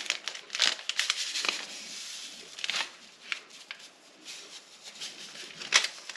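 Small paper vanilla-sugar sachets being crinkled and torn open, a series of short crackling rustles.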